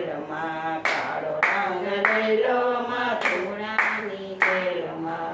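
Two women singing a Gujarati devotional bhajan, keeping time with steady hand claps a little under twice a second.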